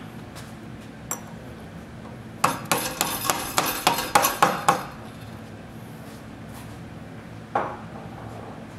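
An orange mallet strikes a metal push-down tool in a quick run of about a dozen sharp metallic knocks, roughly five a second, over two to three seconds, driving an AutoDrill drive spline down into its bore until it is seated. A single knock follows near the end.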